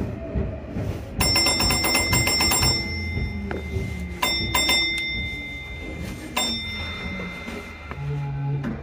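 Electronic railway level-crossing warning bells ringing fast and repeatedly as a Sotetsu train runs past, over the train's running rumble. The loudest ringing comes about a second in, with shorter bouts of ringing in the middle and later on.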